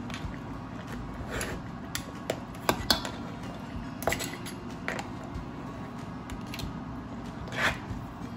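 Metal spoon clinking and scraping against a stainless steel pan as crabs are basted and turned in coconut milk sauce, with wet squishing of the sauce. There are scattered knocks, the loudest a little before 3 s and near the end, over a steady low hum.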